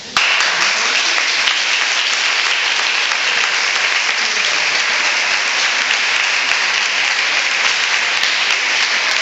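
Crowd applauding, starting abruptly and keeping up steadily.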